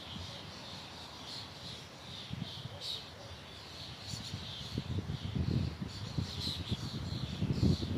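Small birds chirping, short high calls repeating over and over, over a gusty wind rumble that grows stronger in the second half.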